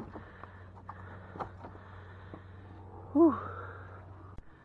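Light knocks and rattles of a wire crab trap being handled on a small boat's deck over a steady low hum, with a man's short sigh falling in pitch about three seconds in. The hum cuts off abruptly near the end.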